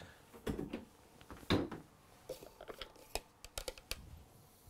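Scattered light clicks and knocks of an electric food chopper's jar and lid being handled and opened after blitzing cauliflower, with two louder knocks in the first two seconds.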